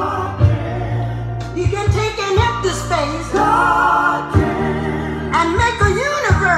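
Music with singing, a record playing on a Kenwood KP-9010 direct-drive turntable.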